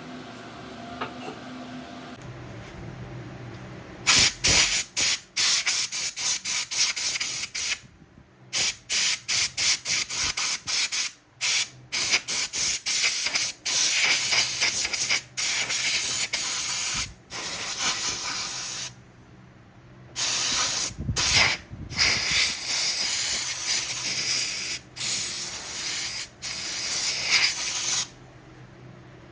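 Spraying hiss, turned on and off many times: quick short bursts at first, then longer sprays, stopping a second or so before the end.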